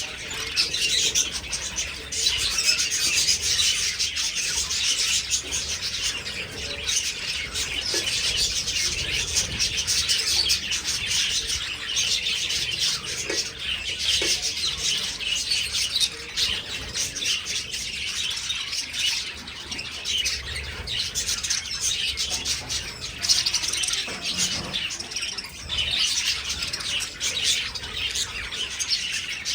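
A large flock of budgerigars chattering and chirping all at once in an aviary, a dense, unbroken chorus of many overlapping calls.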